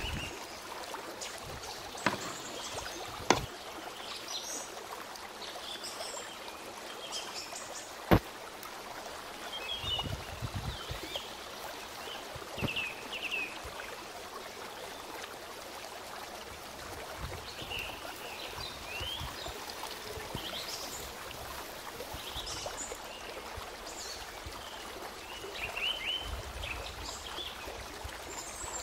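Steady trickle of running water with scattered bird chirps. A few sharp clicks and knocks come through it, the loudest about eight seconds in.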